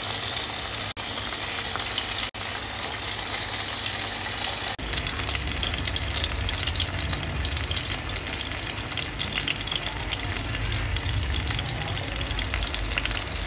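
Fish steaks sizzling in hot oil in a frying pan, a steady hiss with fine crackling spatter. The sound cuts out for an instant three times in the first five seconds, then carries on slightly softer with more crackle.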